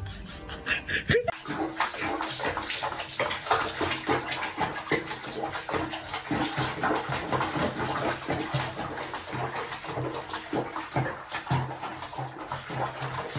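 Water splashing and sloshing in a small bathroom basin holding a cat, starting about a second in.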